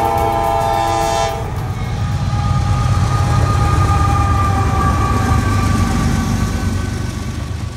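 Diesel freight locomotive horn sounding a chord for about a second and a half at the start, then the locomotive passing close with a steady low engine rumble and wheel-on-rail noise.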